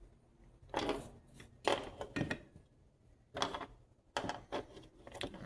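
Several short bursts of clatter and knocks from small tools and parts being handled on a workbench while soldering a small circuit board.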